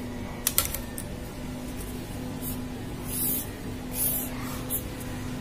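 A felt-tip highlighter rubbing across paper in a few short strokes while a box is drawn around the answer, with a couple of light clicks about half a second in and a faint steady hum underneath.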